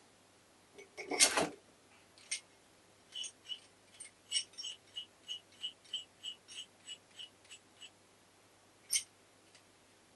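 Small metal parts and hand tools handled on a bench: a clatter about a second in, then a run of light, evenly spaced clicks, about three a second, for several seconds, and a single sharp click near the end.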